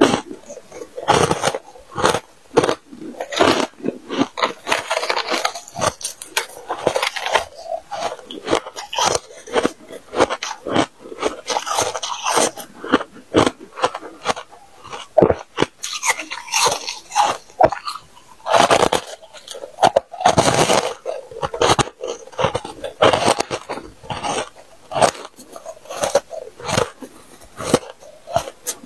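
Close-up crunching and chewing of freezer frost in the mouth: a steady run of sharp, crisp bites and crunches.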